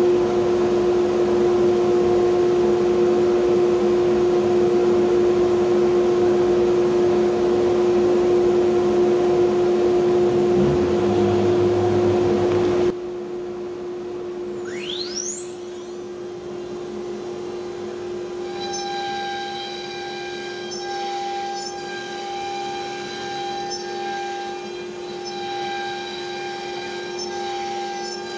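A shop dust collector running with a loud, steady hum. About thirteen seconds in the sound drops, and a CNC router's Niteco spindle spins up with a sharply rising whine toward 24,000 RPM. Then a steady high tone sounds under the hum, stopping and restarting a few times, as the 1/4-inch bit cuts poplar at 528 inches per minute.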